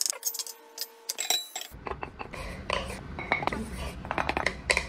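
Light clinks and knocks of dishes: a ceramic plate tapping and scraping against a pot as a cat's paw pushes it, in short irregular strikes.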